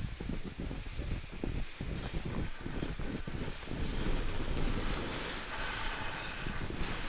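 Skis sliding and hissing over snow, with wind rushing over the microphone as a low rumble. There are irregular scrapes in the first few seconds.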